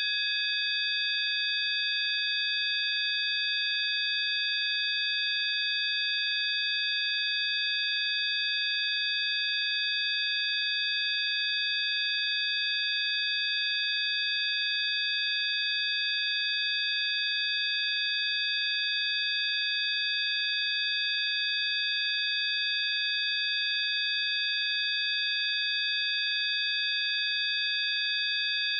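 Synthesized sine-wave tone track of the frequency-healing kind: several high, pure tones sounding together as one steady chord, unchanging in pitch and level.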